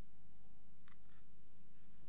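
Quiet room tone with a steady low hum, and a faint click about a second in.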